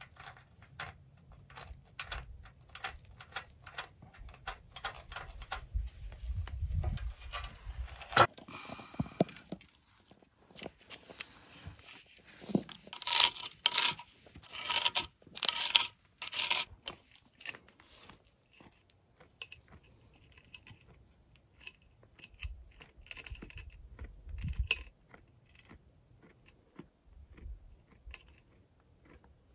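A spirit level and a pencil scraping and tapping against a concrete-block wall while a line is marked out. It comes as a run of short scrapes and clicks, loudest and thickest in the middle.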